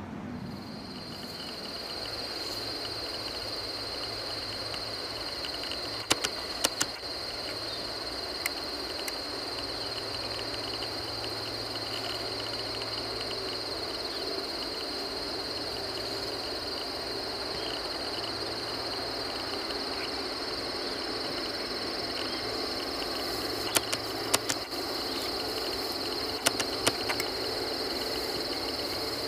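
Steady high-pitched insect chorus holding one pitch, with a few sharp clicks about six seconds in and again near the end.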